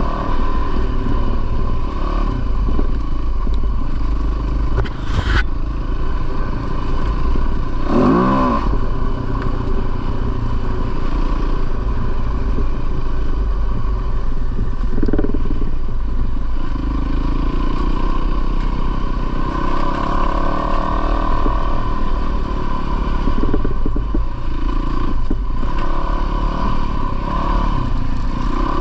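A 450cc four-stroke single-cylinder dirt bike engine running under way, its revs rising and falling a few times, with a sharp knock about five seconds in.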